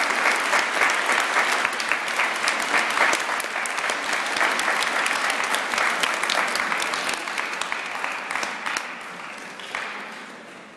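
An audience applauding, the clapping thinning out and dying away over the last few seconds.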